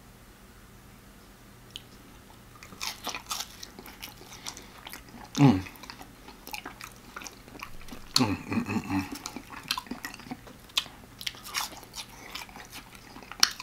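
Close-up chewing of cheese-dipped french fries: wet mouth clicks and smacking start a few seconds in and continue, broken by two short low hums, the first falling in pitch about five seconds in and the second around eight seconds in.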